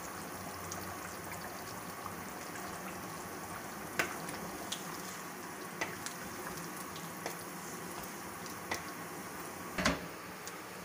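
Chicken curry simmering on low heat in a nonstick pan, a steady bubbling hiss, while a wooden spatula stirs it and knocks against the pan several times, the loudest knock near the end.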